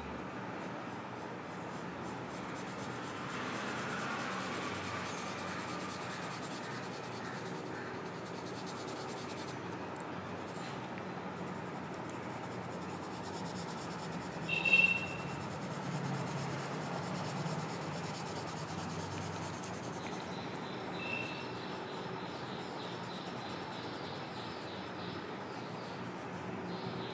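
Charcoal pencil scratching on drawing paper in short shading strokes, with one brief high-pitched chirp about halfway through.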